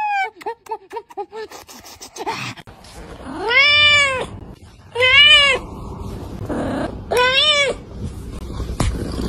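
A cat meowing three times, each a long, loud meow that rises and falls, about a second and a half apart. These follow a quick run of short cries in the first second and a half.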